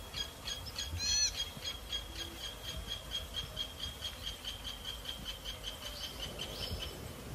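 A bird chirping rapidly, about five high notes a second, with one louder, arching call about a second in. The chirping stops near the end.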